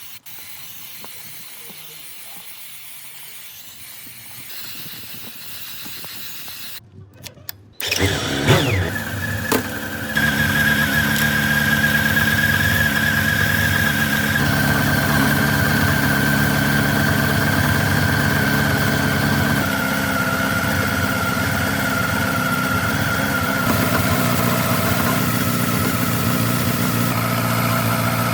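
Motorcycle engine starting about eight seconds in, then running steadily, with a steady high whine over the engine note.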